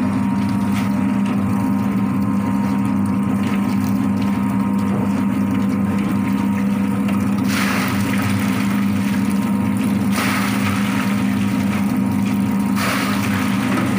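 Drum-type chicken plucking machine running steadily, its motor humming as the rubber-fingered drum spins the chickens. Three louder swishing, hissing stretches come in the second half.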